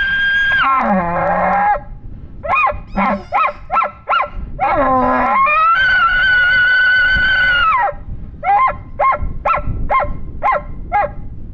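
Bull elk bugling. A high whistle falls into a low grunt, followed by a few short notes. A second long whistle slides down near the end and runs into a string of about six short chuckles.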